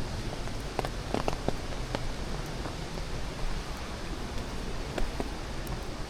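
Forest trail ambience: a steady rushing noise with a deep rumble underneath, broken by scattered light crackles and snaps, clustered around the first two seconds and again near the end.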